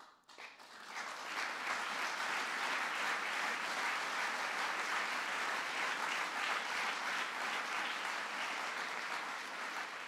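Audience applauding. It builds over the first second or so, holds steady, and starts to fade near the end.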